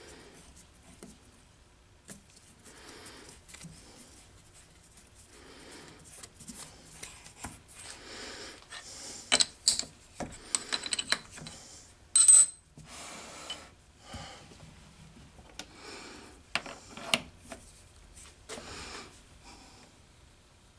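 Small brass part being hand-threaded with a die in a knurled steel die holder on the lathe: irregular metal scraping and clicking, with a cluster of sharp clicks and a brief louder high rasp near the middle.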